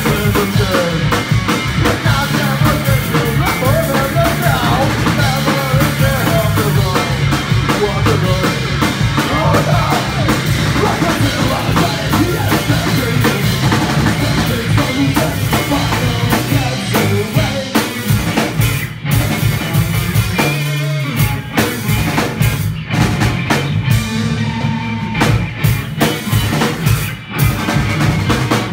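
Punk band playing live on electric guitar, electric bass and drum kit, with no vocal line. About two-thirds of the way through, the full-band playing breaks into stop-start hits with short gaps between them.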